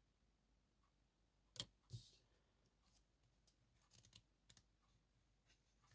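Tarot cards being handled and laid out, faint: a sharp snap about a second and a half in, a brief slide just after, then a few small ticks; otherwise near silence.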